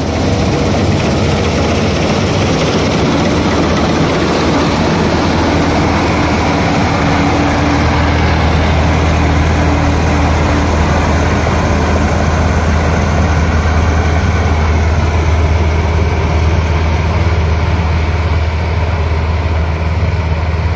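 Combine harvester's diesel engine running steadily at working speed while it cuts wheat, a deep even hum under a dense whirring of the threshing machinery. A steady whine sits over it from about four to eleven seconds in.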